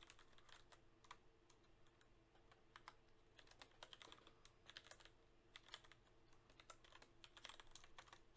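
Faint, irregular keystrokes on a computer keyboard, over a low steady electrical hum.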